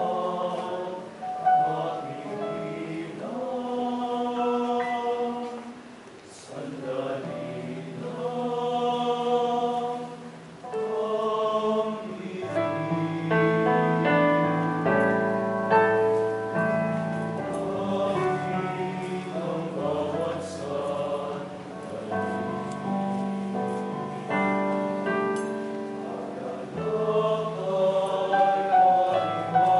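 Choir singing a slow hymn in long held phrases, the sound growing fuller with lower notes from about twelve seconds in.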